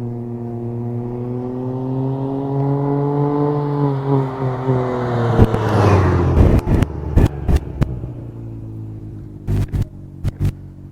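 2021 Can-Am Ryker Rally's three-cylinder engine running through an aftermarket Treal Performance exhaust. It grows louder and higher as the three-wheeler accelerates toward the microphone, passes close about six seconds in with a drop in pitch, then fades away. Several short sharp knocks follow as it recedes.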